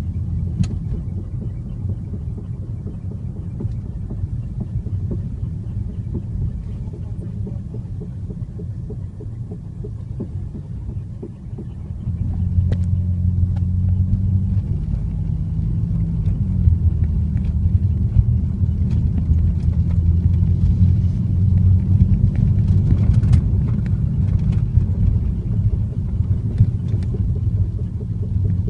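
Ford Fiesta Mk7.5 EcoBoost engine running with a steady low rumble. It gets noticeably louder and fuller about twelve seconds in, with a few faint ticks scattered through.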